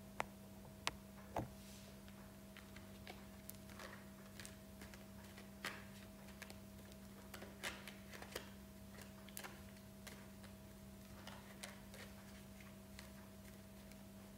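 Scattered, irregular faint clicks and taps from a deck of cards being handled with long fingernails, a few sharper ones in the first second and a half. A steady low hum runs underneath.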